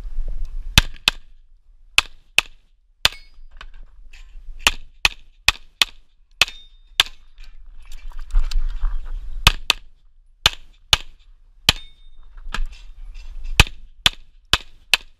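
Rapid 9×19 mm pistol fire from a Tanfoglio Stock II, about twenty shots, mostly in quick pairs, with a short break filled by rustling about eight seconds in.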